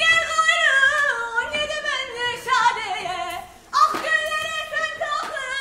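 A woman's loud, high voice held in long drawn-out notes that waver and step down in pitch. It breaks off briefly about three and a half seconds in, then starts again high.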